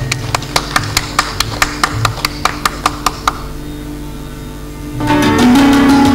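Indian instrumental music: a plucked string instrument picks an even run of sharp notes, about four a second. About five seconds in, louder, fuller music with held tones and drums comes in.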